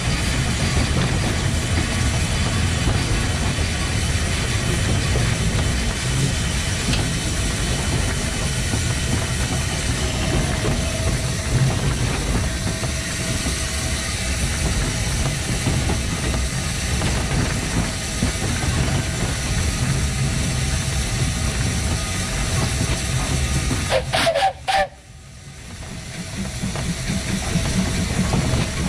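1915 Orenstein & Koppel steam tram locomotive running along the line: a steady rumble of wheels on rail under the hiss of steam. Toward the end, a few short higher tones are followed by an abrupt break in the sound, which then builds back up with a regular beat in the low range.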